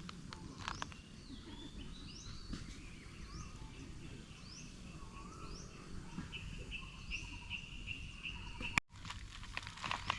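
Forest birds calling: a short rising whistle repeated about once a second, joined from about six seconds in by a steady pulsing high trill, over a constant low background rush. The sound cuts out for an instant near the end.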